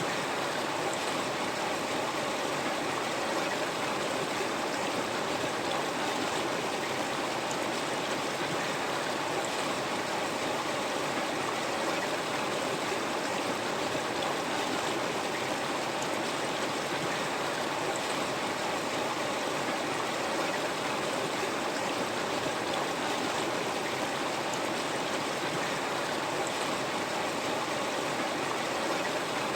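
River water flowing steadily over rocks, an even rushing sound without breaks.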